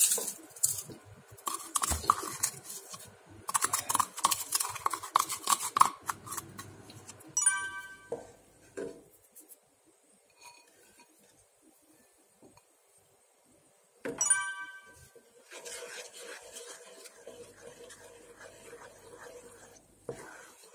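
Wooden spatula stirring and scraping in a small saucepan, with clinks from a glass measuring cup, as salt is dissolved into the liquid. A short bright ringing tone sounds twice, about six seconds apart, with near quiet between. Softer steady stirring of thick red pepper paste follows near the end.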